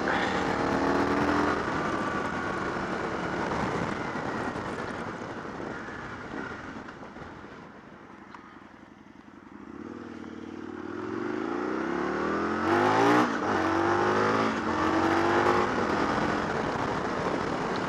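Motorcycle engine heard from the rider's seat with wind rush: it runs down with falling pitch and settles low and quiet around the middle, then accelerates away, pitch rising in sweeps broken by a gear change.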